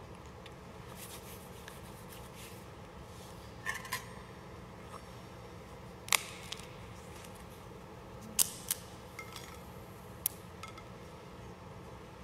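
Metal altar vessels (chalice, paten) and the host being handled on the altar: a handful of sharp clicks and clinks, loudest about six and eight and a half seconds in, over a steady low hum.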